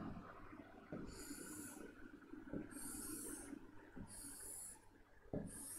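A pen drawn across a writing board in four straight strokes, each a short high scratchy rasp about half a second to a second long, with light taps where the tip meets the board.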